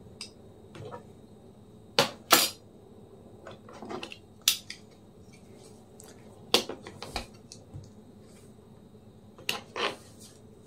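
Sharp plastic clicks and taps as the cleaned laptop cooling fan is handled and its housing snapped back together: about six separate clicks, a pair about two seconds in and another pair near the end.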